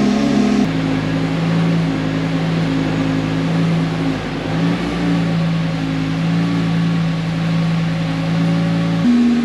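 Lamborghini Gallardo Superleggera's V10 engine running at steady, held revs. The engine note changes abruptly about a second in and again near the end.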